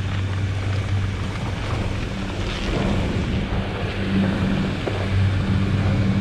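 A steady low motor hum under a rushing haze of air noise.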